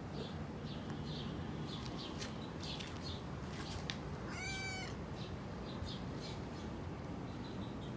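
A domestic cat meows once, briefly, a little past halfway through. Behind it are a steady background noise and scattered short high ticks.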